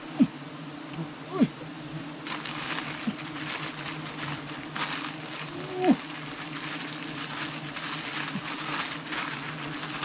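Giant honeybees (Apis dorsata) buzzing in a steady drone around their disturbed nest. Three times single bees zip loudly close past the microphone, their pitch sliding as they pass, about a quarter second in, around a second and a half, and near six seconds. From about two seconds in, a rustling, crackling noise runs alongside.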